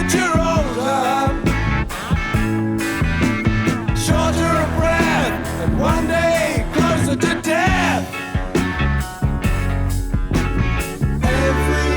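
Rock song with a male singer and full band playing as background music.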